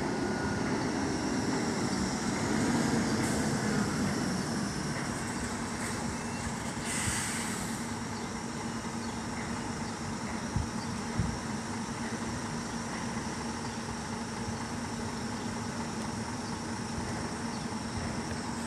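Fuel tanker truck's diesel engine running as the truck moves slowly past. A short hiss comes about seven seconds in, and two knocks a little after ten seconds.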